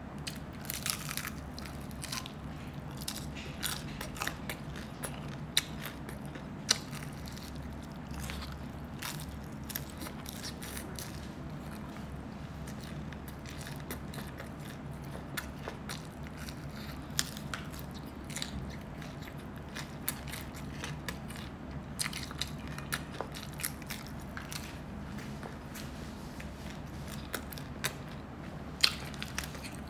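Close-miked eating: biting and chewing, with frequent short, sharp clicks and crackles over a steady low hum.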